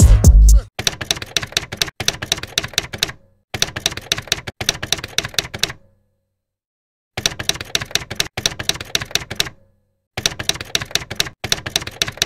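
Typewriter sound effect: rapid key clacks in four runs of a couple of seconds each, with short silent pauses between, timed to text typing out on screen. A deep bass note from music ends the first moment.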